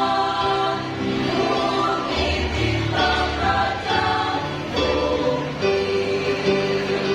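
Choir singing in parts, holding long notes and moving together from chord to chord.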